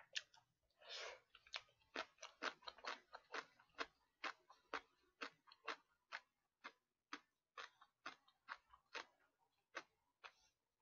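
Faint close-miked chewing: a string of quick wet mouth smacks and clicks, about three a second, as a mouthful of food is eaten.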